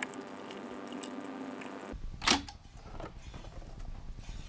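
Akai reel-to-reel tape deck being loaded and started: a steady hum for about two seconds, then a sharp click a little past halfway as the transport engages, followed by lighter clicks and the low mechanical whir of the reels starting to turn.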